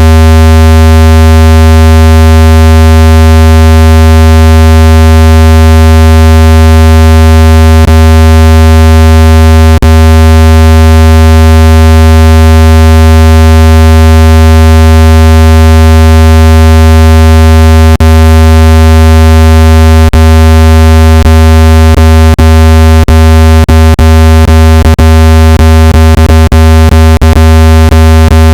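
A loud, steady, low electronic tone, a water-eject sound meant to vibrate water out of a phone speaker. It buzzes with many overtones, and clicks break into it now and then, coming more and more often near the end.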